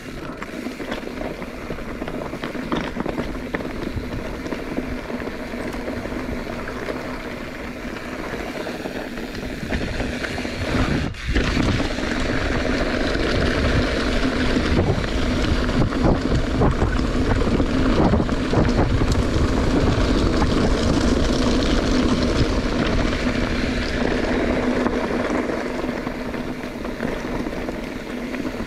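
Wind rushing over the microphone with rolling tyre rumble from a bike moving along a trail. The rush grows louder about ten seconds in, as the speed picks up.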